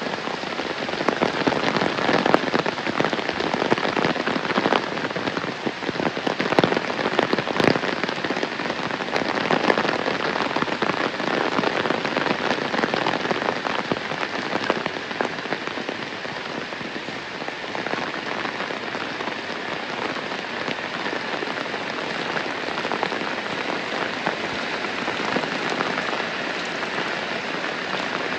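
Heavy rain falling, a dense, steady hiss full of close drop strikes. It is heaviest in the first several seconds and eases a little after.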